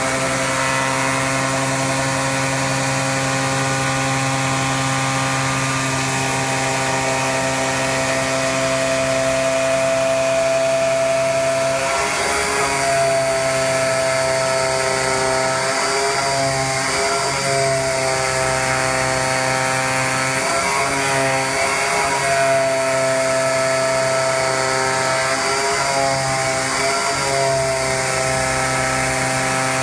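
CNC flatbed digital cutter running, its knife head cutting a 5 mm cork insulation gasket sheet: a steady whine of several tones. From about halfway the tones begin to dip and rise in pitch again and again.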